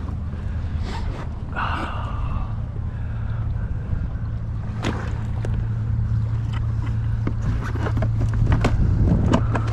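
Wind and water noise around a fishing kayak, with a steady low hum from the kayak's motor that comes in about a second and a half in. Scattered sharp clicks and knocks of tackle being handled, more of them near the end.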